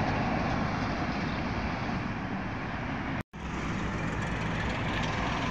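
Street traffic noise, with the engine of a PAZ-320414 Vektor city bus passing. About three seconds in the sound cuts out for a split second, and steady road traffic follows.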